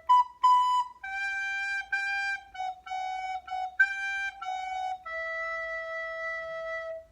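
Descant recorder playing a short melody: two higher notes, then a run of shorter repeated notes, ending on one long held note from about five seconds in.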